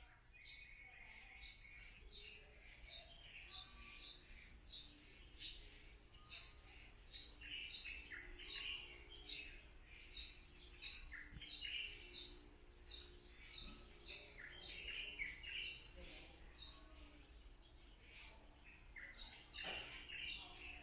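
Birds chirping faintly: a steady run of short, high notes about two a second, with other, lower chirps mixed in.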